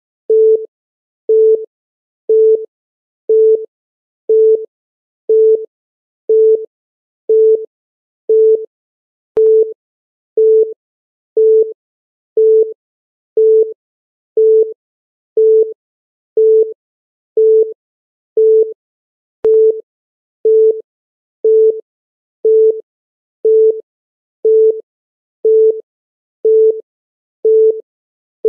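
Countdown timer's electronic beep: a short, steady mid-pitched tone sounding once a second, each beep marking a second ticking off the countdown.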